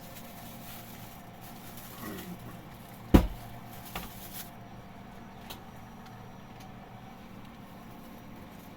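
A single sharp knock about three seconds in, followed by a couple of fainter clicks, over a faint steady background.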